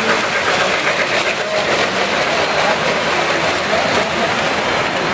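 Toy electric trains running on tinplate three-rail track, a steady whir and rumble of motors and wheels, over the chatter of a crowd.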